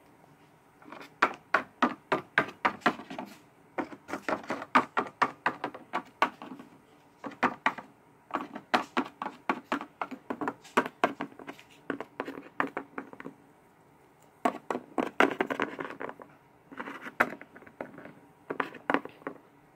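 Plastic Littlest Pet Shop toy figures tapped on a wooden tabletop in quick runs of knocks, hopped along as if walking, with short pauses between the runs.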